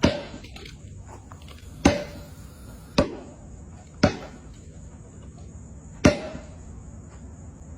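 A basketball bouncing on a hard floor: five sharp, irregularly spaced bounces, each with a short ringing ping.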